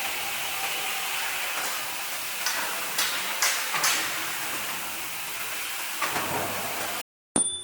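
Handheld belt sander grinding a metal pipe: a steady abrasive hiss with a few sharp scratchy spikes about three to four seconds in. It cuts off suddenly near the end, and a short bright ding follows.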